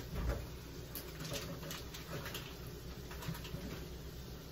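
Faint kitchen handling noises: a soft knock just after the start, then scattered light clicks and taps over a steady low hum.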